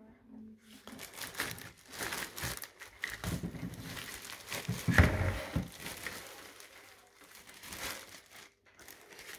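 Clear plastic bag crinkling and rustling as a boxed router is lifted out and handled in its wrapping, with a louder bump about halfway through.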